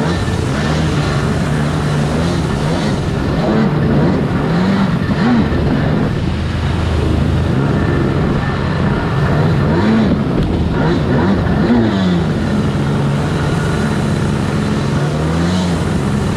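Two-stroke stand-up jet ski engine running at speed, its pitch rising and falling repeatedly as the throttle is worked, over the hiss of water spray off the hull.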